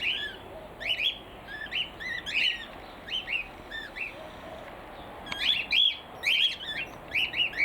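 A flock of stirred-up cockatiels squawking over and over in short rising chirps, several a second. The calls thin out briefly about four seconds in, then come thicker again.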